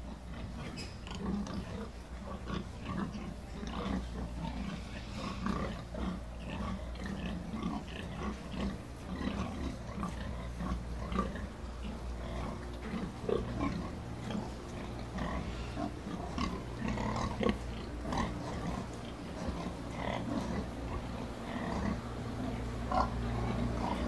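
Pigs grunting now and then in their pens over a steady low hum.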